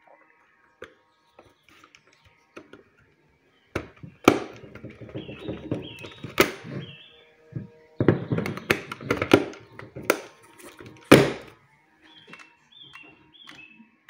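Plastic mains plug and cable being handled and pushed into a plug-in wattmeter on a socket strip: a series of sharp knocks and clicks. A cluster falls around eight to ten seconds in, and the loudest single knock about eleven seconds in.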